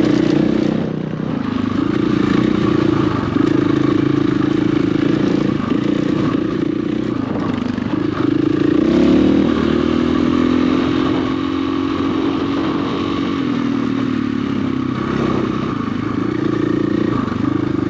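Dirt bike engine running on a trail ride. The revs dip several times and climb again as the throttle is rolled off and back on, with a longer rise and hold about eight to ten seconds in.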